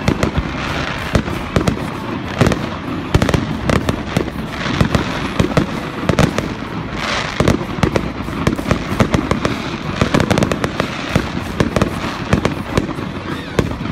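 Fireworks going off: a rapid, irregular string of bangs and crackles from shells bursting in the air.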